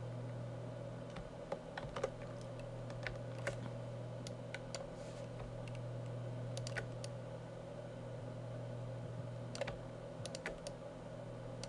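Irregular, scattered clicks of a computer keyboard and mouse over a steady low hum.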